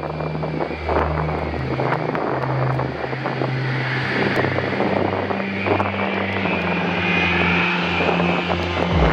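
Boeing 787 Dreamliner on final approach with its landing gear down: steady jet engine noise, with a high whine that grows stronger from about halfway through as the aircraft nears.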